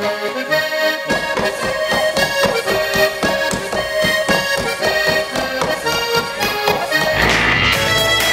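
Accordion playing a lively traditional Alpine folk tune, with an even beat of sharp knocks, about five a second, running under it. About seven seconds in, the knocks stop and the music changes to a fuller, deeper sound.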